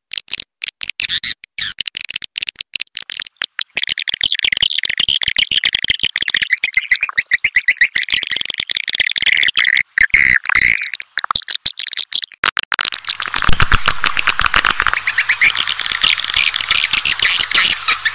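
Swiftlet call (lure) sound track: rapid, high chirping and twittering of edible-nest swiftlets, the kind played to draw swiftlets into a nesting house. The chirps come in short separate runs at first, run together without a break from about four seconds in, and thicken into a denser, fuller chatter near the end.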